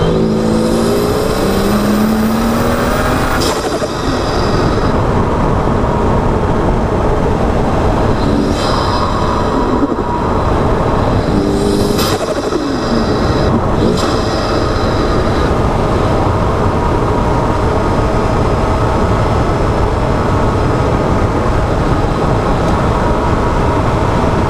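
BMW M2's tuned turbocharged straight-six, with an Eventuri carbon intake, heard from inside the cabin. It accelerates hard, its pitch rising with a high whistle climbing alongside, then cuts off at an upshift with a sharp crack; it pulls again and cracks at shifts about twelve and fourteen seconds in. It then settles into a steady cruising drone mixed with road noise.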